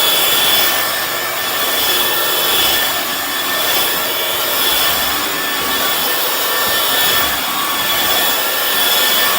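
Hoover FloorMate hard floor cleaner running in wet scrub mode: a steady motor and suction noise with a thin high whine, as its spinning brushes scrub a messy floor. The level rises and falls slightly.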